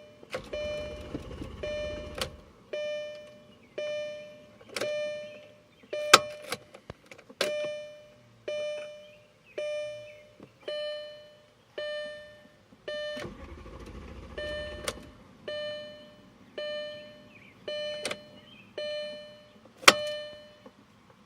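Dashboard warning chime of a 2005 Audi S4 Avant that will not start, sounding over and over about once a second, each tone fading away. A low whir runs for about two seconds twice, near the start and about halfway through, and two sharp clicks stand out.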